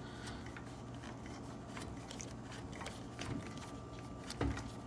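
Faint clicks and light scraping from hands working the screw clamp of a plastic desk clamp power strip fixed to a table edge, with a soft knock about four and a half seconds in.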